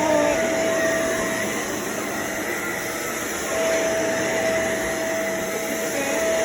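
Bagless vacuum cleaner running steadily with a high motor whine. The whine drops out about a second and a half in and comes back about two seconds later.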